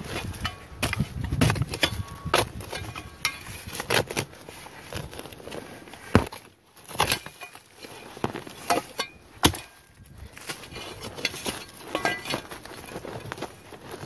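A small ultralight shovel chopping and scraping into soil, roots and dead leaves, with a gloved hand raking out dirt: irregular sharp strikes mixed with gritty scraping.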